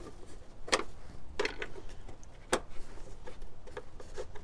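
Plastic push-pin fasteners on the air intake snorkel being pried up and pulled out: a series of sharp clicks, three louder ones among a few fainter ticks.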